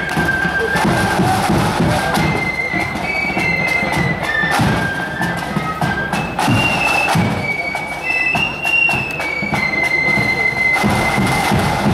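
Marching flute band playing a tune: shrill flutes carry the melody in short held notes over a steady drum beat with bass drum.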